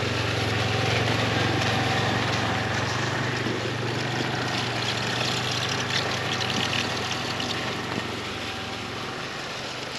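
Snowmobile engine idling, a steady low hum that gets a little quieter near the end.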